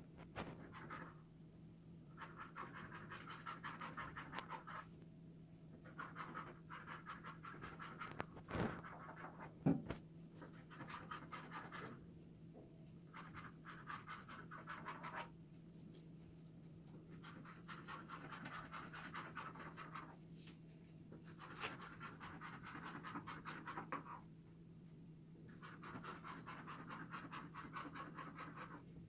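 Repeated scratchy rubbing or scraping strokes, each lasting one to three seconds with short pauses between, over a steady low hum. Two sharp knocks sound about nine and ten seconds in.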